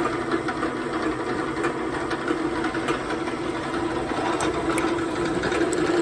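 Drill press running steadily with an even motor hum, its bit drilling out a broken-off drill bit in a blower's carburetor housing.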